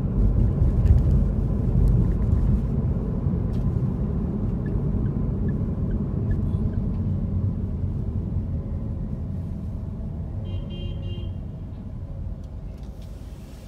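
Low road and engine rumble heard from inside a car, fading steadily as the car slows toward a stop. A short high-pitched beep sounds about ten and a half seconds in.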